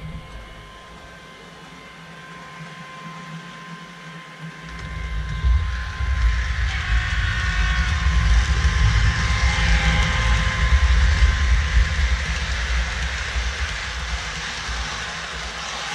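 Sound of a TGV PSE high-speed train approaching and passing, played by a sound-equipped model TGV PSE: a low rumble starts about four and a half seconds in, grows loud and stays so for several seconds, then eases off near the end. Faint steady tones run underneath.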